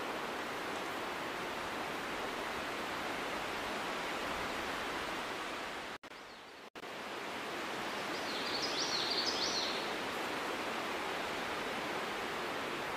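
Steady outdoor background hiss with no clear separate sounds, broken by a sudden dropout about six seconds in. A short run of high chirps follows about two seconds later.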